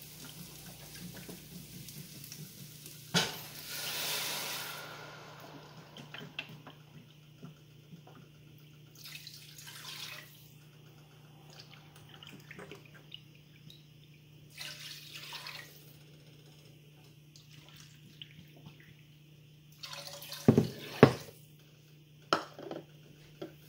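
Water poured from a plastic pitcher into a measuring cup and tipped into a steel saucepan, several separate pours, over a low steady hum. Near the end come a few sharp knocks, the loudest sounds, as the pitcher and cup are put down.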